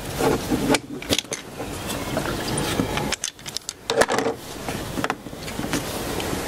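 Irregular clicks, knocks and rustling of hands and tools working on a coolant hose connection in an engine bay, close to the microphone, with brief muffled drop-outs where a hand is near it.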